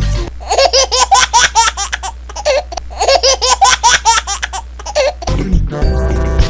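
A high, childlike laugh sound effect: a run of quick 'ha-ha' syllables, played twice in a row almost identically. Music comes back in near the end.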